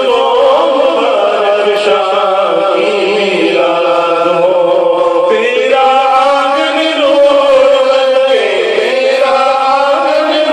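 A man singing a naat, an Islamic devotional song sung without instruments, solo into a handheld microphone, drawing out long held notes that waver and bend in pitch.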